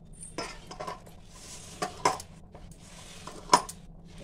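Hand mixing and kneading atta dough with soaked jaggery in a steel bowl: soft rubbing and squishing, broken by several sharp clinks of bangles knocking against each other and the bowl, the loudest about three and a half seconds in.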